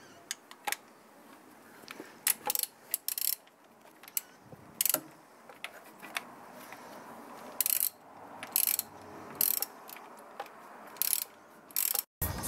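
Hand tools working on the bolts and fittings of a new water pump in a car engine bay: short irregular bursts of mechanical clicking and ratcheting. Near the end an aerosol can starts spraying with a hiss.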